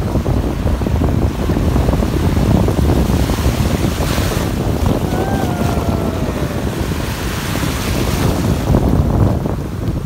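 Shallow surf washing and fizzing around wading feet at the water's edge, with heavy wind buffeting the microphone. A faint, slowly falling whistle-like call sounds about five seconds in.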